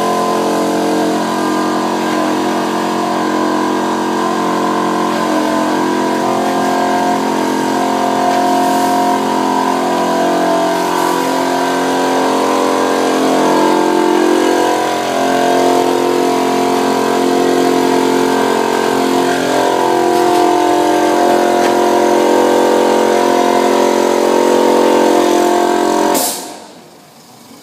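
A machine running steadily, a dense mechanical hum of several tones, that stops abruptly near the end with a short sharp sound.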